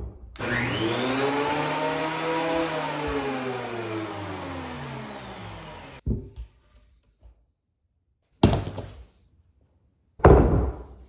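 A machine-like whir whose pitch rises and then falls, lasting about six seconds before cutting off abruptly, followed by a few sharp knocks, the last one the loudest.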